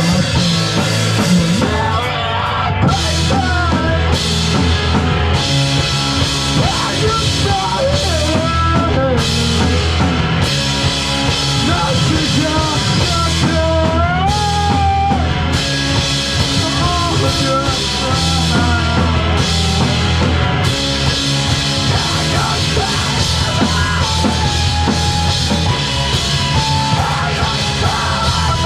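Live rock band playing loudly: a drum kit keeps the beat under a full band, with a melodic line that bends and glides in pitch.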